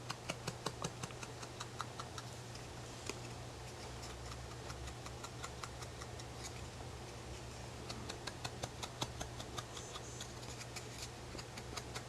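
Pen tip tapping dots onto paper: a quick, irregular run of light ticks, several a second, busiest near the start and again from about eight seconds in, over a low steady hum.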